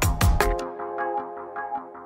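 Electronic intro music: heavy beats with deep bass, giving way about half a second in to a held synth chord over a quick light pulse that grows quieter.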